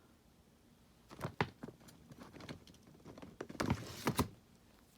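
Small plastic toy dolls and pieces being handled: a string of light clicks and knocks, with a brief rustle about three and a half seconds in that ends in two sharp clicks.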